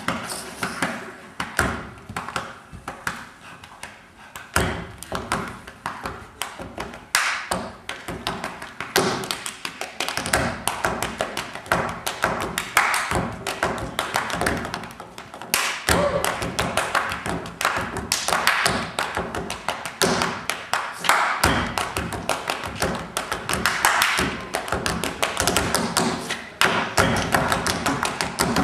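Tap dancing: tap shoes striking a stage floor in fast rhythmic patterns, sparse at first and growing denser and louder about ten seconds in.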